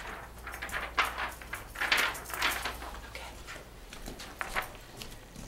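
Sheets of paper rustling in short, irregular handfuls as they are handed out.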